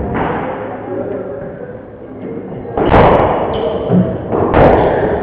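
Squash ball being struck and hitting the court walls: two loud, sharp impacts with a ringing echo, about three seconds in and again near the end, over the steady hum of the court.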